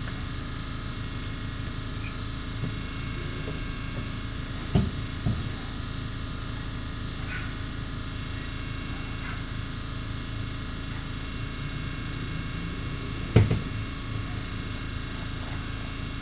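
A few sharp metal clunks as the Celica's muffler and exhaust hanger rods are worked into their rubber hangers: two close together about five seconds in and a louder one near the end, over a steady background hum.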